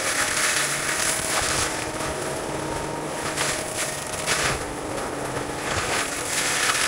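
Heavy equipment running steadily, with repeated surges of crackling, hissing noise about every second or so.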